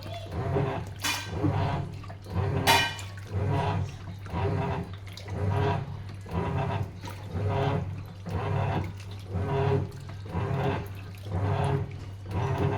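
Sharp washing machine in its wash cycle: water sloshing in the tub in regular surges, about one every 0.7 seconds, over a steady low motor hum, with one sharper splash about three seconds in.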